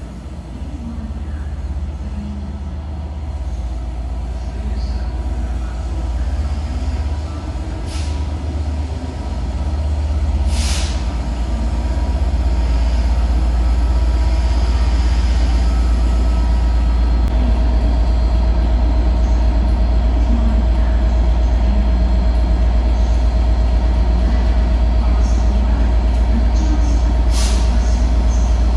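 Diesel locomotive engine running with a deep, steady rumble that grows louder about twelve seconds in, as it works close by. A few short hisses of air come from the brakes.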